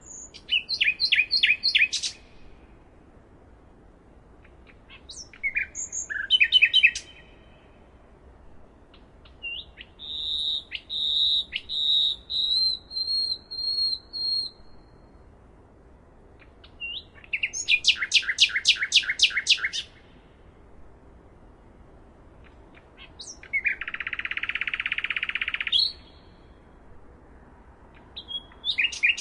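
Nightingale singing in separate, varied phrases with pauses of a few seconds between them: bursts of rapid repeated notes, a run of pure whistled notes, a fast trill, and near the end a buzzy rasp before another phrase begins.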